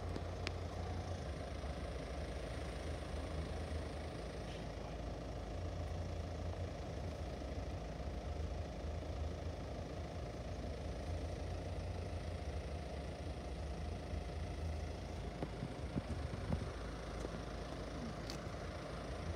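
A road vehicle's engine idling steadily, a low even hum.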